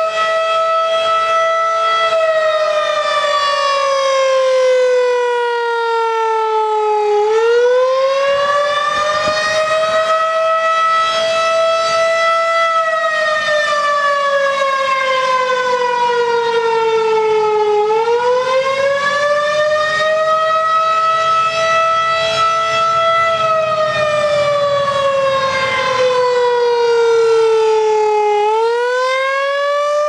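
Federal Signal 2001 electromechanical rotating tornado siren sounding its test tone. The one loud, pitched note slowly sags and then swings quickly back up about every ten seconds as the horn rotates.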